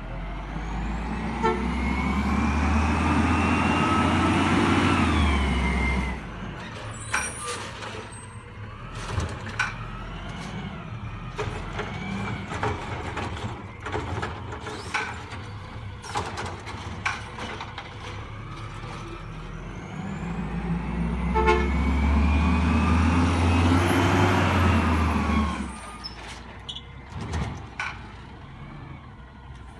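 Autocar WX64 garbage truck with a Heil Rapid Rail automated side-loader arm: the engine and hydraulics rev up with a rising whine twice, about five seconds each time and some twenty seconds apart, as the arm cycles. Scattered clanks and bangs come between the two revs.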